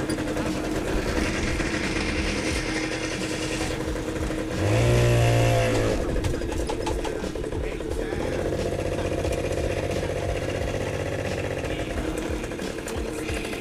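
Small engine of a homemade go-kart running steadily as it is ridden, with a louder rev lasting about a second and a half, about four and a half seconds in.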